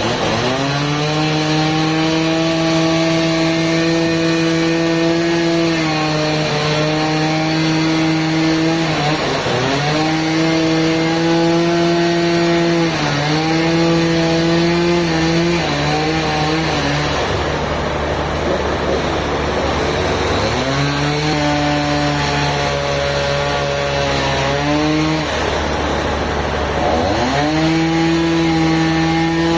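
A chainsaw running at high revs while cutting timber, its engine note dipping in pitch every few seconds as the chain takes load. The steady note drops away for a few seconds in the middle, then comes back up.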